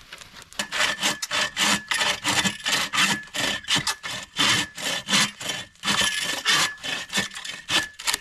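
A hand saw cutting through a piece of firewood with rapid back-and-forth strokes. It starts about half a second in and stops near the end.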